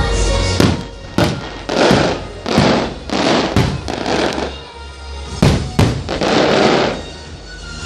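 Aerial fireworks going off in a rapid series of about eight sharp bangs, with noisy crackling stretches between them.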